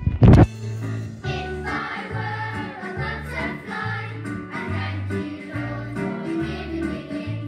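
A loud thump just after the start, then a children's worship song: a choir singing over a backing track with a steady, pulsing bass beat.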